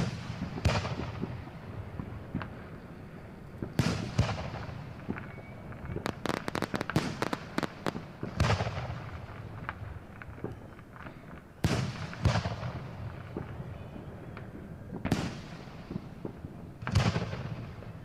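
Fireworks going off: about eight loud booms a few seconds apart, each trailing off in an echoing rumble, with a rapid run of crackling pops about six to eight seconds in.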